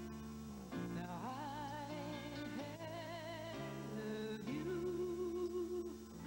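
A country-pop ballad: a woman's voice sings long held notes with vibrato over a guitar and bass accompaniment.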